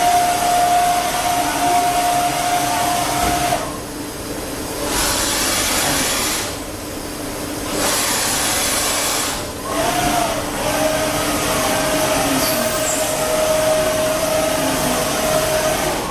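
Vertical lathe running: a steady hissing machine noise with a high whine that cuts out about a third of the way in and comes back a little lower later on. The hiss dips briefly three times in between.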